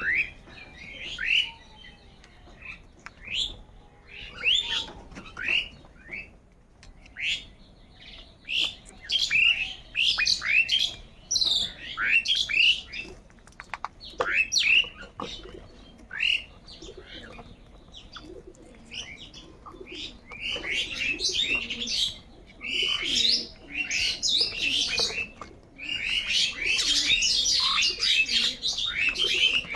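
A flock of crows calling: many short, harsh calls overlapping one another. The calls are spaced out at first, grow more frequent, and thicken into a dense chorus near the end.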